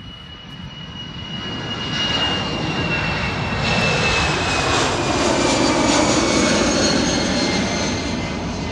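Jet airliner climbing out after takeoff at full power: a loud rumble that builds over the first two seconds and then holds, with a high whine that slowly falls in pitch as the jet passes.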